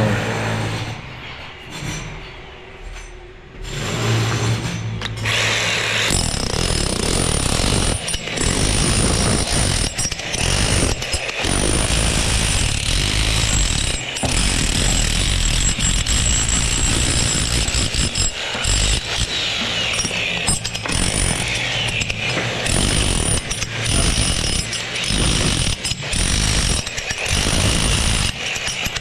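Loud power tool running almost without a break from about six seconds in, with short irregular dips, typical of work on a construction site.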